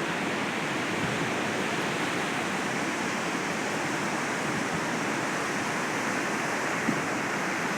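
Ocean surf breaking and washing on the beach, a steady even rush of noise.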